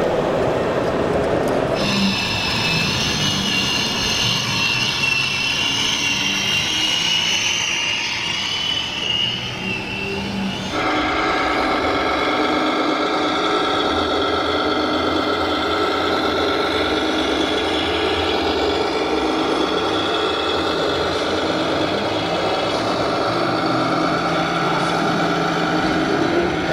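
Radio-controlled model trucks running, a steady mechanical vehicle sound. A high whine sinks slowly in pitch in the first part, and the sound changes abruptly twice, about two and eleven seconds in, where the footage cuts to another truck.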